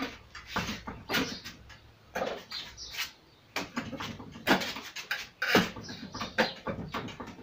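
Wooden Wing Chun dummy (mook yan jong) struck by hands and forearms: irregular hollow wooden knocks and clacks, a few a second and uneven in loudness, as its arms and trunk are blocked and hit.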